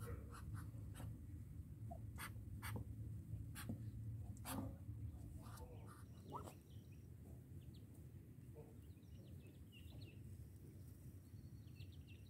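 Dry straw rustling and clicking in a Muscovy duck's nest over a low steady hum. In the second half come faint, short, high peeps from newly hatched Muscovy ducklings.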